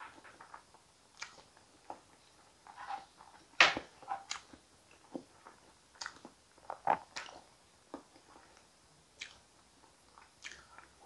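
Close-up eating sounds of someone chewing soft sweet potato and avocado: wet mouth smacks and chewing, broken by scattered short clicks. The sharpest click comes about three and a half seconds in.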